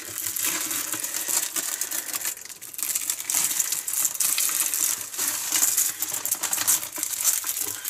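Plastic packaging and packing tape crinkling and rustling as hands work at a taped parcel, full of small crackles, easing off briefly about two and a half seconds in.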